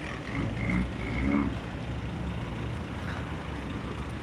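Cars rolling slowly past in queued traffic, their engines running low and steady, with a louder swell about a second in.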